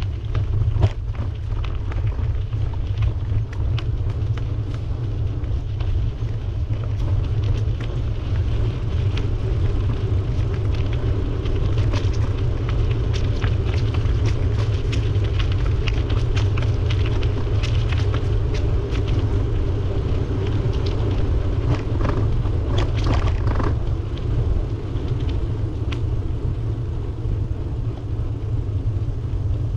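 Wind rumbling on the microphone of a camera riding on a moving bicycle, with road noise and scattered short clicks and ticks.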